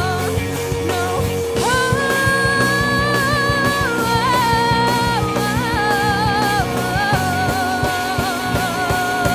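Live rock band playing: drum kit, bass and guitar under a lead melody of long held notes that step between pitches every second or two.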